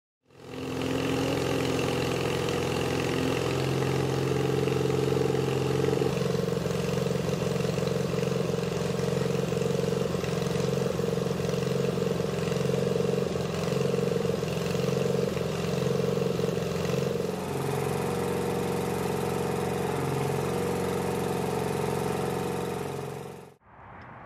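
Boom truck engine running steadily while the crane lifts, shifting pitch about six seconds in and again near seventeen seconds; it cuts off just before the end.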